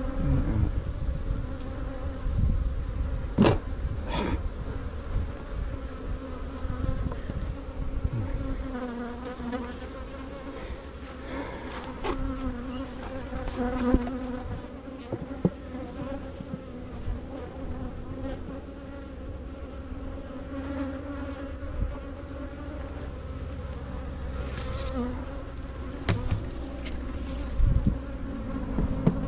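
Swarm of agitated, defensive honey bees buzzing right around a head-worn camera: a steady hum whose pitch wavers as bees pass close to the microphone. A few sharp knocks break in, two of them close together about three and a half seconds in.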